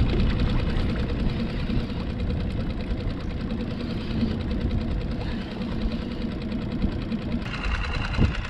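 Small outboard motor running steadily at low trolling speed, with a fast even mechanical chatter.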